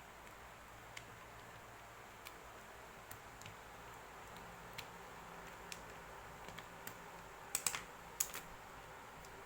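Scattered light clicks and taps over a faint steady hiss, with a quick cluster of sharper clicks near the end.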